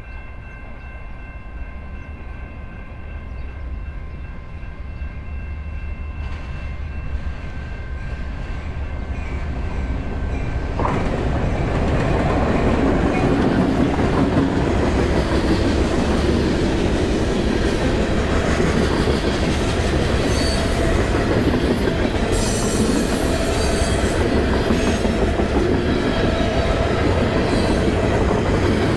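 CN diesel-hauled freight train approaching and passing over a road grade crossing. It grows steadily louder until the locomotive reaches the crossing about 11 seconds in, then the cars keep rolling by with wheels clattering over the rails.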